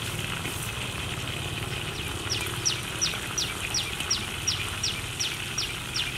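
A bird calling a rapid series of short, high, falling notes, about three a second, starting a little over two seconds in, over a steady background hiss.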